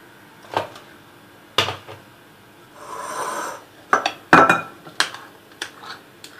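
A metal spoon knocking and clinking against glass mixing bowls: several sharp, separate knocks spread about a second apart, with a brief soft rushing noise about three seconds in.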